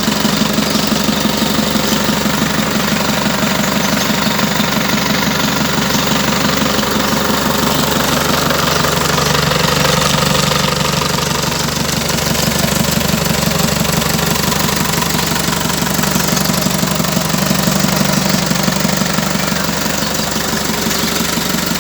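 Mitsubishi 120 PS engine running steadily at an even speed, with a rapid knocking pulse and no revving.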